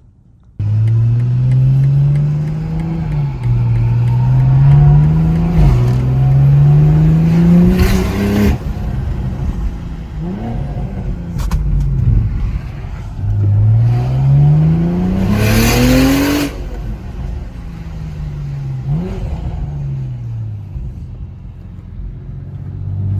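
BMW M340i's B58 straight-six, fitted with a big single turbo, accelerating hard through the gears: the engine note climbs, drops at each upshift and climbs again, with a loud whoosh at the end of two of the pulls.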